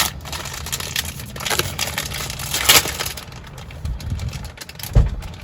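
A plastic snack bag crinkling and crackling as it is handled and torn open, followed by a short thump about five seconds in.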